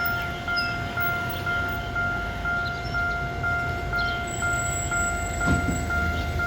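Railway level crossing warning bell ringing a steady electronic chime, about two strikes a second over a constant tone: the crossing's special alarm sound, warning that a train is approaching.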